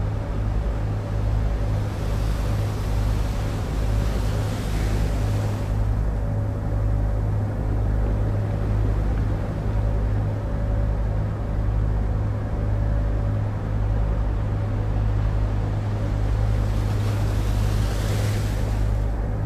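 Boat's engine running steadily, a low drone with a faint regular pulse, heard from inside the cabin.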